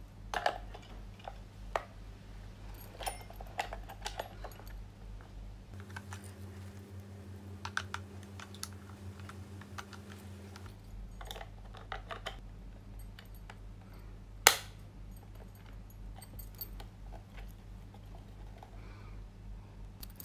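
Plastic clicks and taps as AA batteries are fitted into the battery compartment of an IKEA Dekad alarm clock and the clock is handled. One sharp, much louder snap comes about two-thirds of the way through.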